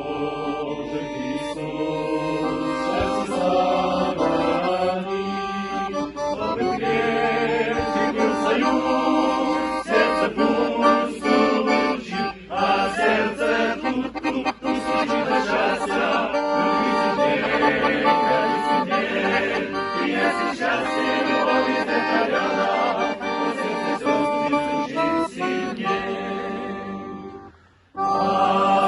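Instrumental interlude of a Christian men's-choir song: sustained chords and a melody on a reedy keyboard-type instrument, with no singing. It breaks off briefly near the end, then the music starts again.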